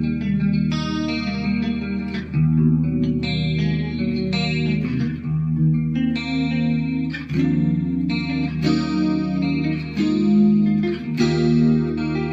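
Electric guitar played with a clean tone: ringing, sustained chords and notes, a new one struck every second or so.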